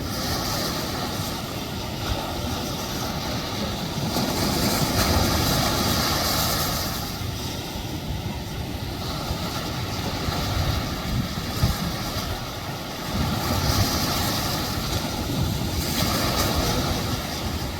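Ocean surf and wind noise, a steady rush that swells and eases every few seconds, with a low rumble of wind on the microphone.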